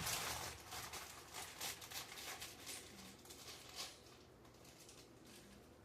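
Faint rustling and light clicks of toy pieces and packaging being handled, thinning out after about four seconds.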